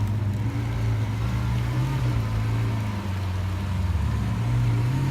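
A car engine running steadily at low revs, idling or creeping at low speed, with a slight waver in pitch.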